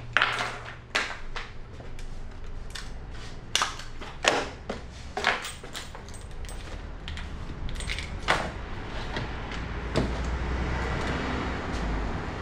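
Papers and small objects being handled at a counter: irregular sharp clicks and knocks, with a short stretch of rustling near the end, over a low steady hum.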